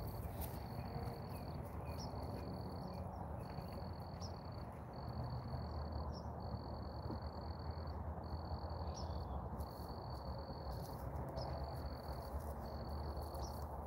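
Insect trilling on one high pitch in stretches of about a second, broken by short pauses, over a low steady background rumble.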